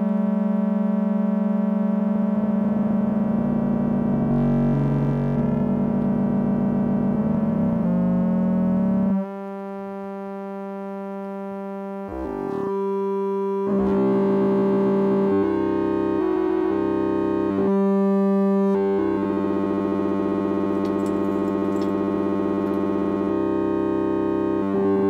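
Lorre Mill Double Knot v3 synthesizer holding a sustained buzzy tone from its two oscillators, hard-synced by a square wave run through its VCA. The tone colour shifts in steps as the sync amount changes, going quieter and thinner about nine seconds in and filling out again around fourteen seconds.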